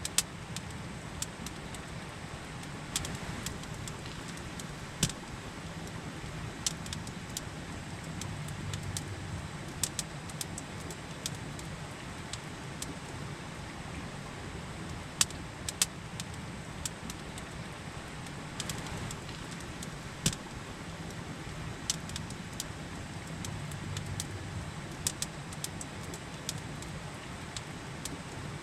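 Campfire crackling, with sharp pops coming at irregular moments, over the steady rush of a river.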